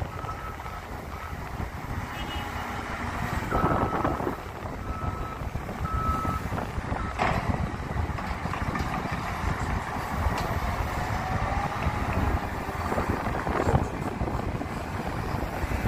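Diesel engine and hydraulics of an Atlas material handler running steadily as it works a clamshell grab. A reversing alarm beeps on and off through the first six seconds or so. Louder rushing surges come about four seconds in and again near the end.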